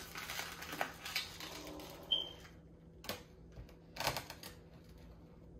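Plastic packaging crinkling and clicking as it is folded up and handled, with a brief squeak about two seconds in and a few separate sharp clicks after that.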